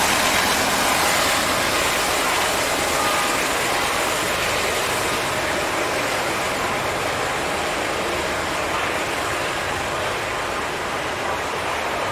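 Freight train rolling past close by: the diesel engine of a GE D9-44CW locomotive that has just passed fades as it moves on, under the steady wheel-on-rail noise of covered hopper cars going by. The noise eases slightly and loses some of its hiss near the end.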